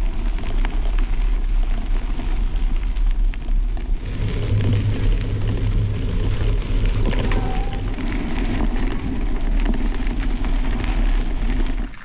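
Wind buffeting a camera microphone on a moving bicycle: a steady, loud rumbling roar, with small clicks and rattles from the bike and tyres on the track.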